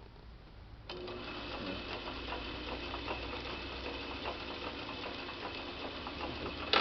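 Logan 10 x 24 Model 200 metal lathe, driven by a 3-phase 2 HP motor, starting up about a second in and running steadily with a whir and a fast ticking clatter from its gearing. A sharp click near the end.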